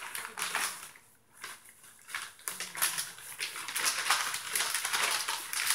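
Dry wood shavings rustling and crackling as they are scooped by hand out of a plastic bag into a bowl, the bag crinkling along with them; a short pause about a second in, then steady rustling.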